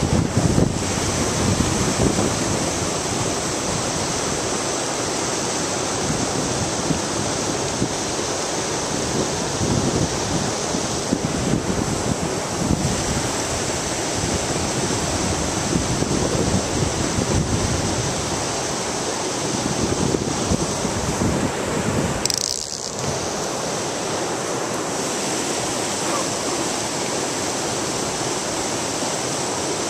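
River water rushing over rocks in a shallow rapid, a steady rush.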